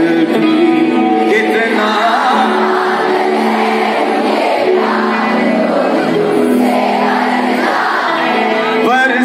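Live concert: a male singer over amplified backing music, with the crowd singing along.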